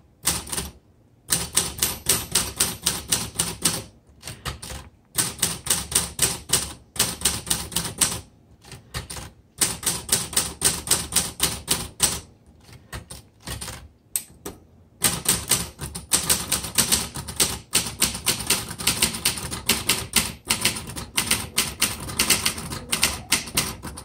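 1973 Facit-Odhner all-metal manual typewriter being typed on: quick runs of sharp keystrokes, about five or six a second, broken by several short pauses.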